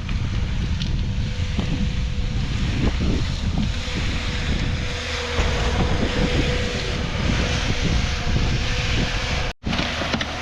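Steady low rumble of a running engine, with wind buffeting the microphone. The sound drops out for an instant near the end.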